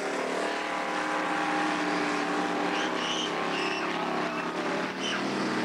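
Engines of speedway race cars running hard around a dirt oval, a steady drone of several engine notes.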